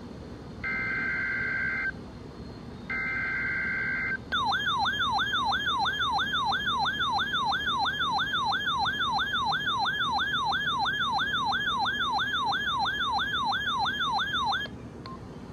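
Emergency Alert System relay of a severe thunderstorm watch over a radio receiver. Two short bursts of the SAME digital header's screeching two-tone data come first. Then, about four seconds in, a loud warbling siren-like attention tone starts, sweeping up and down about two and a half times a second for some ten seconds before it cuts off.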